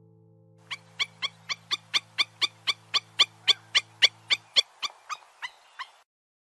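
Black-winged stilt calling: a rapid run of short, sharp calls, about four a second, growing louder and then fading over the last few before stopping.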